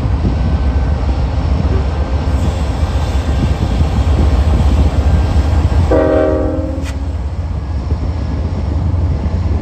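Diesel freight locomotives running with a steady low rumble while a commuter train passes on the adjacent track. About six seconds in, a train horn gives one short blast of several tones.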